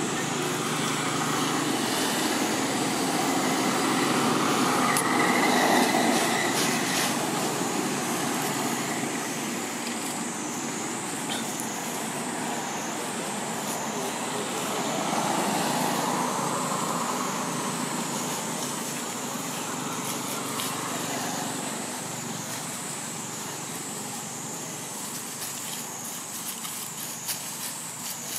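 Road traffic noise from passing vehicles, swelling up and dying away twice, over a steady high-pitched hiss.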